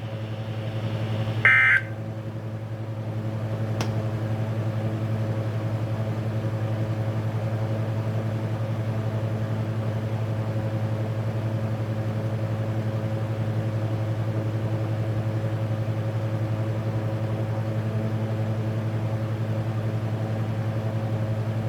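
A brief burst of Emergency Alert System digital data tones about a second and a half in, the end-of-message code that closes a NOAA Weather Radio test. After it comes a steady low hum with faint overtones, the dead air of the weather radio broadcast, with a single click near four seconds.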